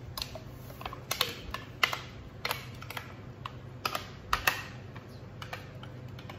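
A metal spoon scraping and knocking inside a blender jug as thick sauce is worked out of it onto pasta: an irregular run of sharp clicks and taps, over a low steady hum.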